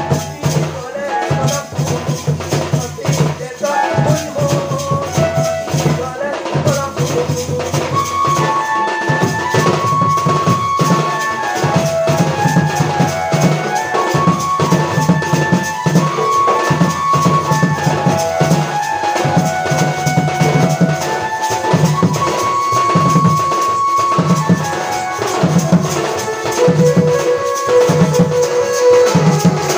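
Live folk dance music: a large double-headed dhol drum beaten in a strong, regular rhythm, with a melody instrument playing held notes over it.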